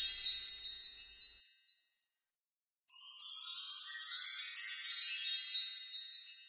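Magic-wand sparkle sound effect: high tinkling chimes that fade away, then after about a second of silence a second shimmer whose pitch sweeps upward, tailing off near the end.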